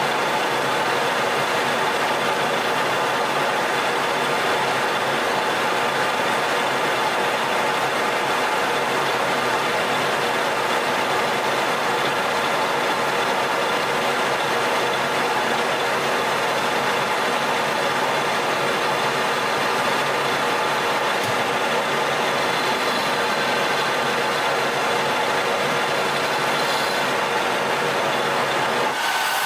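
Colchester lathe running steadily under load while a carbide insert turns a 4140 steel shaft: an even machine whine with a steady cutting hiss.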